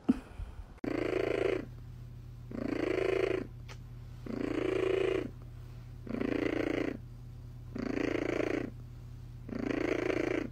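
Domestic cat purring close to the microphone, in loud swells about every one and a half seconds with a low steady hum between them. A sharp knock comes right at the start.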